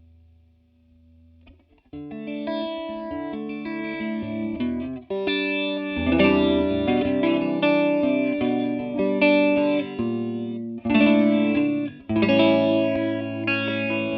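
Electric guitar strumming chords through a TC Electronic Corona Mini chorus pedal. The playing comes in about two seconds in, after a faint fading tone, and the chords ring and change every second or so.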